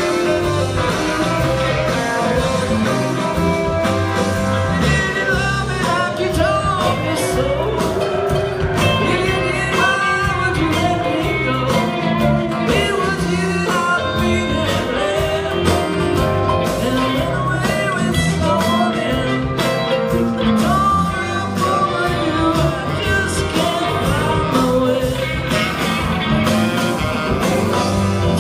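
Live string band playing a song at full volume, heard from the audience through a phone's microphone: acoustic guitar, mandolin and drums, with singing over them.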